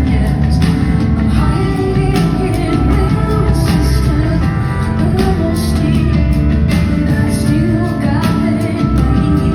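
Live rock band music with a steady drum beat under sustained keyboard and bass parts.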